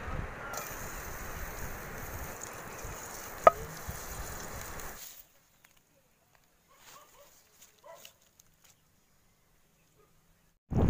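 Wind buffeting the microphone over a steady outdoor hiss, with one sharp clink about three and a half seconds in. About five seconds in the sound cuts off to near silence, broken by a few faint short chirps.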